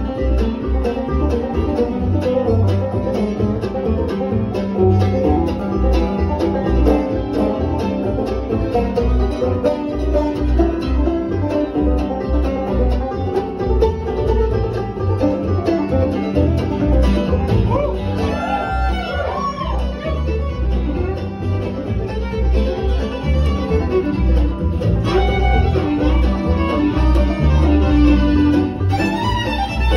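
Live acoustic string band playing an instrumental bluegrass-style tune on fiddle, mandolin, acoustic guitar and upright bass, over a steady beat.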